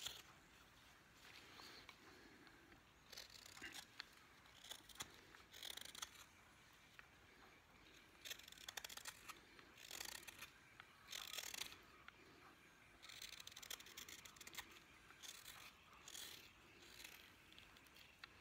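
Knife blade slicing thin shavings from a green-wood spoon bowl: a series of short, faint scraping cuts at irregular intervals.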